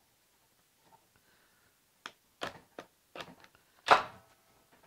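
Scattered knocks and clicks of a cordless drill with a spade bit being handled against a wooden beam, starting about two seconds in, with one loud knock near four seconds that rings briefly.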